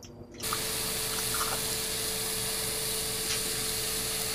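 A steady rushing hiss with a low hum under it sounds at the stovetop as tomato soup is poured from a carton into a saucepan on a lit propane burner. The noise starts abruptly about half a second in and cuts off suddenly at the end.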